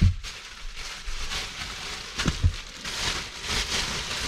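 A plastic bag rustling and crinkling as it is handled, with a dull knock at the start and another about two and a half seconds in.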